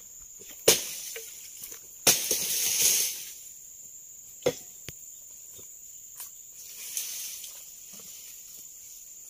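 A long-pole harvesting sickle chops at oil palm frond stalks in a series of sharp strokes. One stroke, about two seconds in, is followed by about a second of rustling palm leaves. A steady high insect drone runs underneath.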